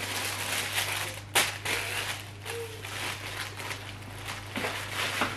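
Tissue paper rustling and crinkling as it is pulled back from around a handbag, with a few sharper crackles.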